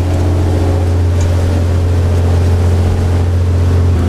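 Motorboat engine running steadily, a deep continuous hum with a hiss over it; the tone of its overtones shifts slightly near the end.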